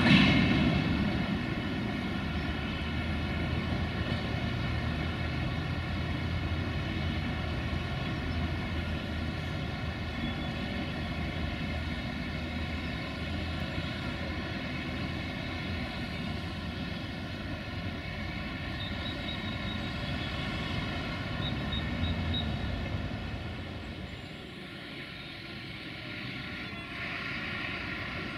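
Diesel train engine running steadily with a droning hum, easing off a little about 24 seconds in.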